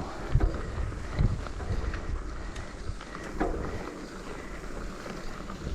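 Wind rumbling on the microphone, with a few faint knocks.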